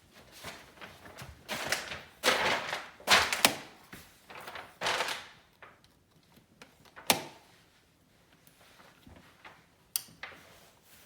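Utility knife blade dragged through grasscloth wallpaper in a few short, rasping strokes, double cutting a seam. Then a sharp click, and another near the end.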